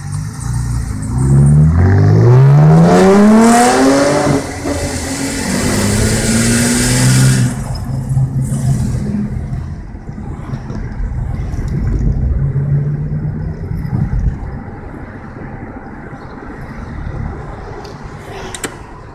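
2013 Chevrolet Camaro's 3.6-litre V6 with a straight-piped exhaust accelerating hard. Its pitch climbs steeply for about three seconds, holds loud for a few seconds more, then drops to a quieter, steady drone mixed with road noise.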